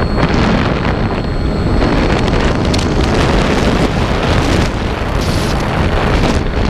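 Wind rushing and buffeting over the onboard GoPro microphone of an FX-79 Buffalo flying wing in flight, a loud, steady rush.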